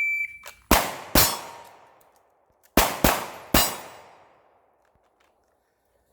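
Shot-timer start beep, a short high tone, then pistol shots that ring on and fade. Two shots come about half a second apart, then after the reload pause three more come in quick succession.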